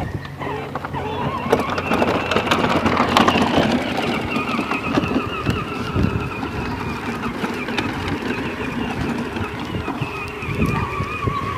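Battery-powered ride-on toy quad's electric motor and gearbox whining as it drives over grass and dirt. The whine rises in pitch as it gets going and then wavers, over a rough clatter from the plastic wheels and body on the bumpy ground.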